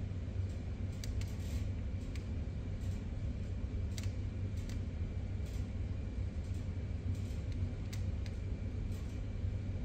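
Steady low rumble of room background noise, with a few faint scattered clicks.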